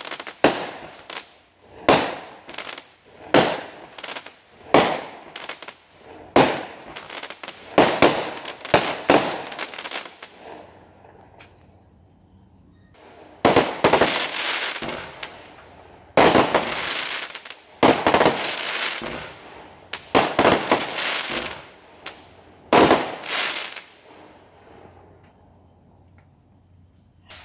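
Fireworks going off: a quick series of sharp bangs for about ten seconds, then after a short lull about five louder blasts, each trailing off in a long echo across the neighbourhood.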